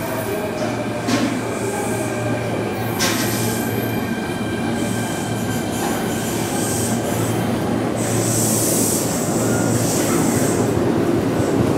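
Kintetsu 3220 series electric express train pulling into the platform and braking to a stop. A faint whine falls in pitch early on, and a high brake squeal comes in near the end as the train halts.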